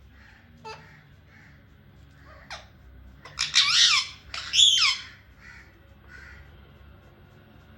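Parrot giving two loud calls in quick succession about halfway through, after a couple of short, softer calls.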